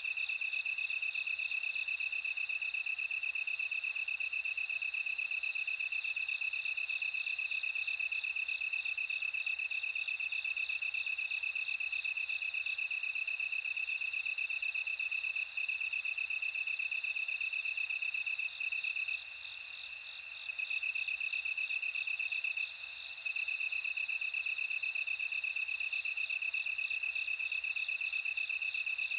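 Bell crickets singing: a steady high trill with louder ringing phrases of about a second each coming and going above it, and faint quick chirps higher still.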